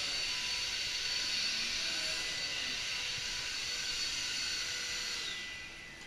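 Upright vacuum cleaner running over carpet: a steady rush of air with a high motor whine. About five seconds in, the whine falls in pitch and the sound drops as the motor winds down.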